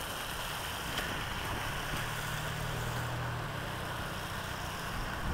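Street noise with a vehicle engine running; its low steady hum is clearest for a couple of seconds in the middle.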